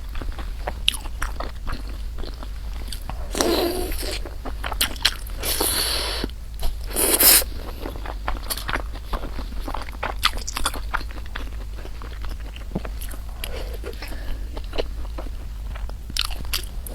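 Close-miked eating: a person chewing and crunching food, with many small wet mouth clicks. There are three louder, longer noisy stretches about three and a half, five and a half, and seven seconds in.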